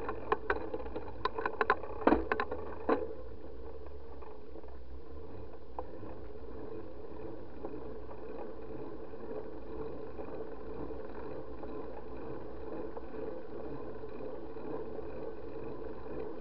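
Steady wind and rolling noise of a bicycle ride on a paved road, picked up by a bike-mounted SJ4000 action camera, with a few sharp clicks and knocks in the first three seconds.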